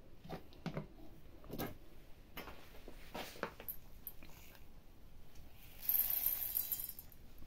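Dry grain poured by hand from a plastic container into a steel feed bowl: a short rattling hiss about six seconds in, after a few scattered small clicks and rustles.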